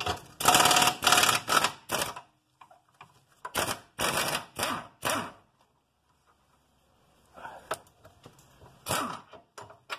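Rapid mechanical rattling from tool work on the car, in short bursts: several in the first two seconds, four more around the middle, and fainter ones near the end.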